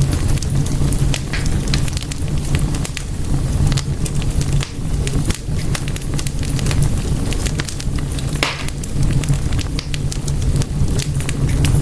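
Wood fire in a fireplace crackling, with many sharp pops over a steady low rumble; one longer, louder crackle comes about two-thirds of the way through.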